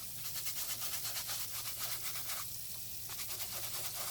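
A soft brush scrubbing a soapy dishwasher filter in quick back-and-forth strokes, several a second, with a short break about two and a half seconds in.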